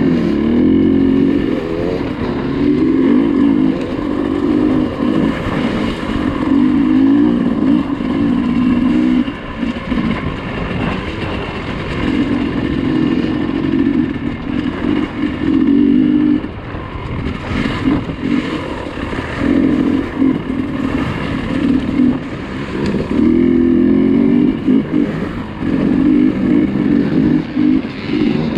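Dirt bike engine under way on a trail, repeatedly revving up on the throttle and dropping back, with short throttle-offs several times.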